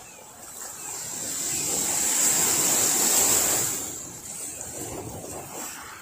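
Small sea waves breaking on a pebble beach: one wash swells up about a second in, peaks, and fades away after about four seconds, with a smaller wash following.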